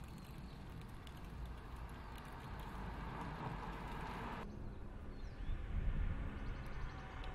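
Lexus IS300 sedan driving by: road and engine noise builds up, cuts off abruptly about four and a half seconds in, then lower engine and road noise grows louder near the end.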